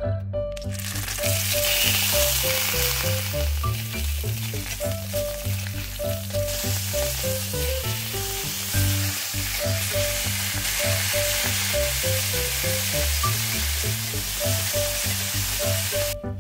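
Sausages frying in hot oil in a cast-iron skillet: a steady, loud sizzle that starts about half a second in and cuts off just before the end, with background music under it.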